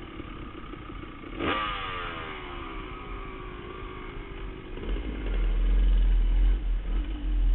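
Dirt bike engine revving sharply about one and a half seconds in, its pitch then falling away as the throttle comes off. From about five seconds in a loud low rumble takes over.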